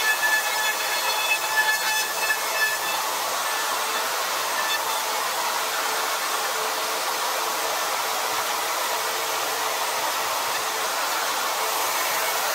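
Ryobi trim router running steadily as it is guided around a template jig, cutting the fin-box slot into a surfboard blank. It gives a hissing whine that settles into an even hiss after the first few seconds.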